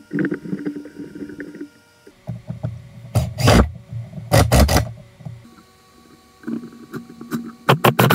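Cordless drill driving screws into a plywood speaker box in short bursts, twice in the middle and then in a stuttering run near the end. A lower hum is heard between the bursts.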